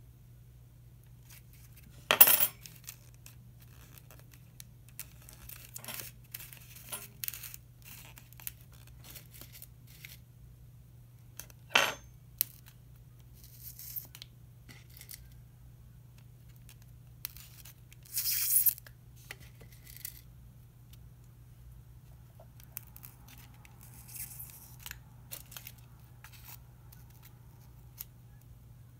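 Small handling noises of pinning paper strips on a foam spreading board: light clicks and taps of insect pins and metal forceps, and rustling of the paper strips. Three louder short rustles or scrapes come about 2, 12 and 18 seconds in, over a faint steady low hum.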